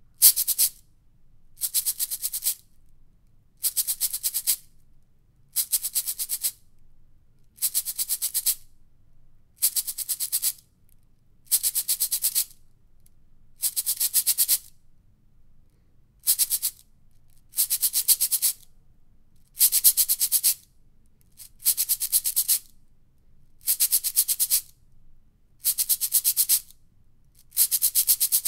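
Cabasa played in a steady rhythm: its steel bead chain is twisted against the wooden cylinder to make a short metallic rasp about every two seconds, some fifteen strokes in all.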